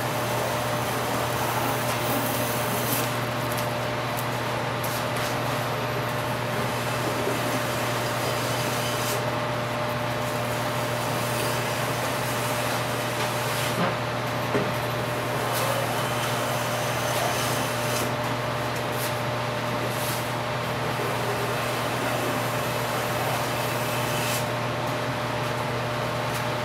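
Steady drone of running shop equipment with a low hum, with softer scraping of a hand plane shaving the edge of a birch floorboard coming and going over it.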